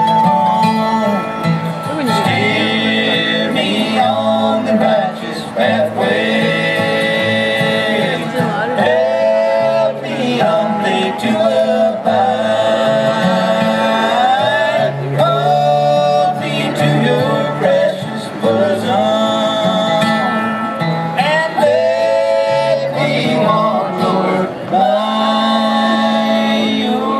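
Live bluegrass band playing: acoustic guitar and mandolin under several men singing in harmony, in sung phrases with held notes.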